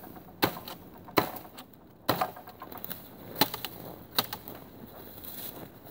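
A 1060 carbon steel katana hacking into brush and thin branches: a string of sharp whacks, about five hard hits roughly a second apart, with smaller twig crackles between.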